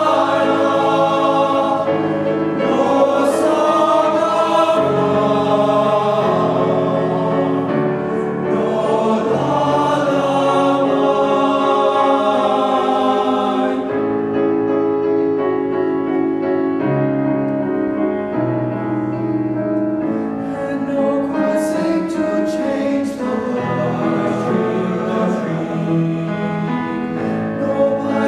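Teenage boys' choir singing a sustained choral piece in several parts, going a little softer from about halfway through.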